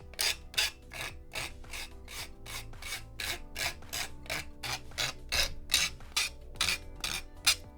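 Sanding block rubbing quickly back and forth along the edge of a plastic model part, about four strokes a second, smoothing down the rough edge left where it was cut from the sprue.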